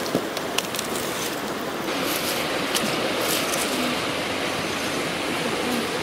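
Crickets frying in a wok over a wood fire: a steady sizzle with scattered sharp pops and crackles, growing brighter about two seconds in.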